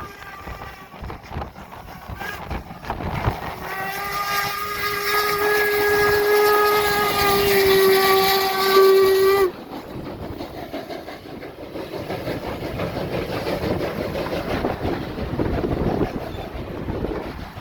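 Steam locomotive whistle blown in one long blast of about six seconds, a few seconds in. It holds a steady pitch, grows slightly louder and cuts off abruptly. A steady rumbling noise of the passing train and wind follows.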